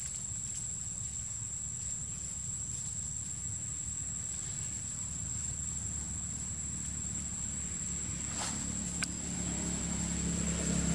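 Steady, high-pitched drone of forest insects, with a low rumble underneath and a brief rustle and click near the end.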